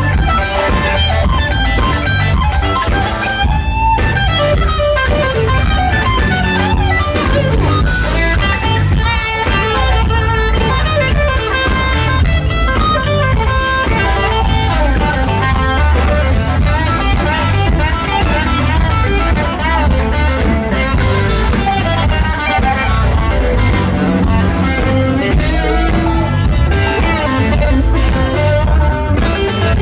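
Live band playing blues-rock: an electric guitar leads over a drum kit and a heavy low end.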